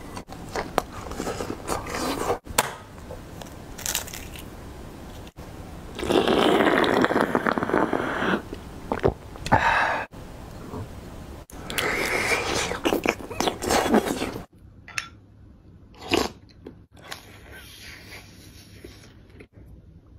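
A person eating with the microphone close: chewing and crunching mouthfuls of food, with two louder stretches of crunching in the middle, broken by abrupt edits. It gets quieter near the end, with a few sharp taps and handling sounds.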